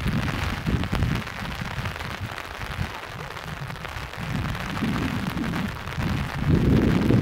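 Heavy rain falling steadily, with strong wind gusts buffeting the microphone in uneven low rumbles that grow louder near the end.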